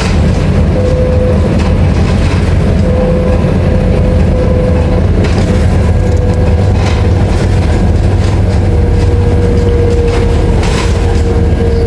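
Scania K310IA articulated bus running under way: a steady low diesel drone with a thin whine that comes and goes and grows longer near the end. Scattered short rattles and knocks from the bus body.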